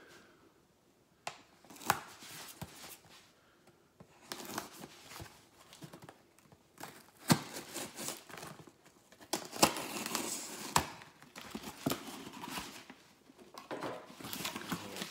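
A mail-order package being opened by hand: packing material torn and crinkled, with irregular sharp snaps. It is sparse at first and becomes steady rustling from about four seconds in.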